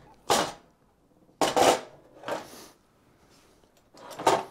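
Aluminium LS cylinder head being turned over and set down on a steel bench top: about four short metallic scrapes and knocks, spread out with quiet between them.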